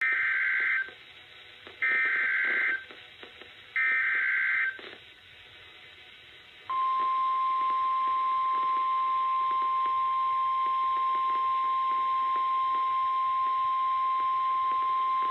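Emergency Alert System header: three short bursts of screeching digital data code announcing a severe thunderstorm warning, about two seconds apart. A long, steady single-pitch weather radio attention tone starts about seven seconds in and holds to the end.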